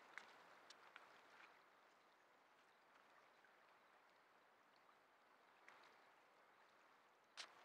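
Near silence: a faint steady hiss with a few soft clicks, the loudest of them near the end.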